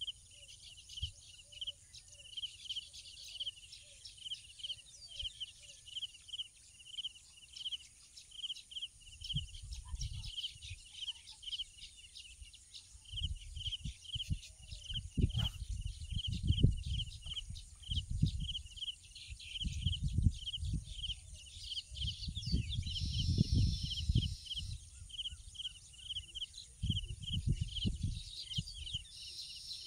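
Outdoor rural ambience: a steady run of high, evenly repeated chirps, about two or three a second, over a faint constant high hum. Irregular low rumbles come in from about a third of the way through, heaviest in the middle and near the end.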